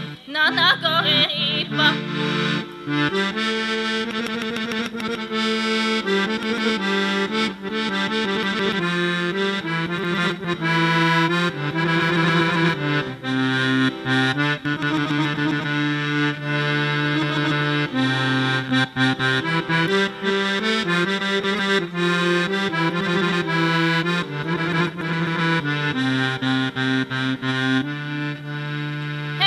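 Piano accordion playing an instrumental Bulgarian folk tune: a quick melody of many short notes over held bass notes that change every second or two.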